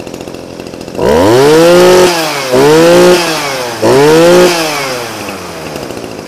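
An Echo Kioritz SRE2720 brush cutter's 26 cc two-stroke engine idling, then revved three times in quick succession, each rev rising sharply in pitch and dropping back. It settles back to a fading idle near the end.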